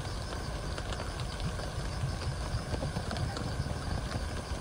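Rain pattering on a tent: a steady, even patter with scattered drop taps over a low rumble.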